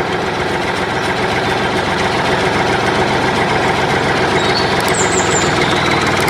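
A small motor running steadily.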